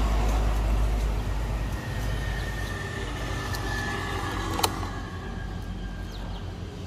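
Road traffic with a heavy low rumble that eases after the first second or so. About four and a half seconds in there is a single sharp click as a key goes into the electric scooter's ignition lock.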